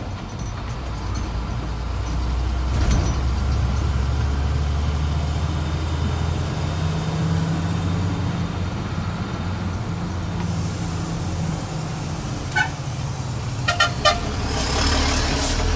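Mercedes-Benz 1620 truck's six-cylinder diesel engine running steadily under load, heard from inside the cab. Near the end there are a few short horn toots.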